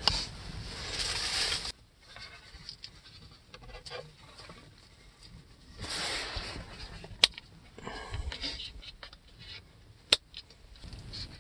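Hands handling the plastic parts of a Xiaomi Mijia portable vacuum cleaner: rustling and scraping with small clicks, and two sharp clicks in the second half as the spring-loaded dust-bin valve is opened and snaps shut.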